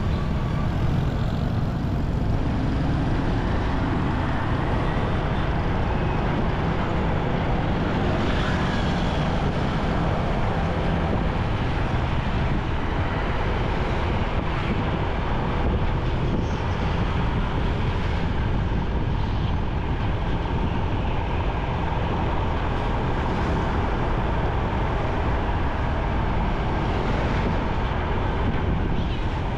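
Steady traffic and road noise from riding a motorcycle through city streets, even throughout and heaviest in the low rumble.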